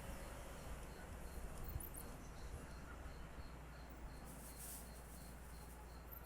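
Faint room noise with a low steady hum, over which a high, thin chirp repeats evenly about three times a second, typical of a cricket.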